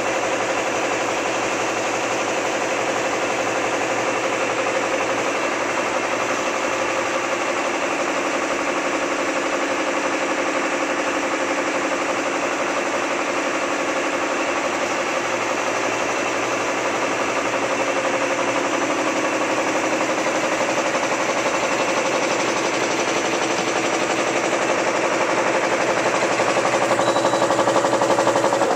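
Automatic napkin folding machine running steadily: a continuous mechanical hum with a fast, even clatter from its rollers and folding mechanism.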